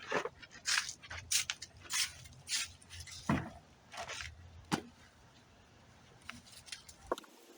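A quick run of short scraping and rustling handling sounds, about a dozen in the first five seconds, then a few fainter ones. A low steady hum underneath cuts off abruptly near the end.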